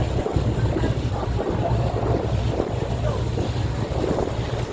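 Motorboat engine running at a steady cruise, a constant low rumble, with wind buffeting the microphone and water rushing past the hull.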